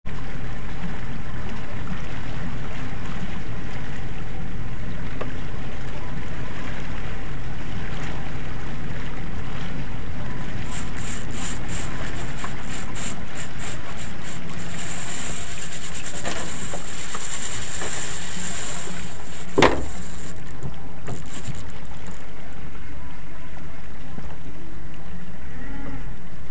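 Small outboard motor running steadily at trolling speed, with wind on the microphone. A high-pitched rattling buzz comes in about ten seconds in, runs unbroken for a few seconds mid-way and fades out in stutters, and a single sharp knock sounds about twenty seconds in.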